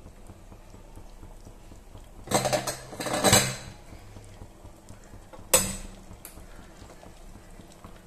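Metal kitchen utensils and vessels clattering: a rattling run of clinks about two seconds in, then a single sharp clank with a short ring a couple of seconds later.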